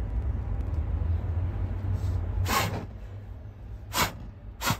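Tissue paper being twisted and rolled into a wick, three short rustles in the second half over a steady low rumble.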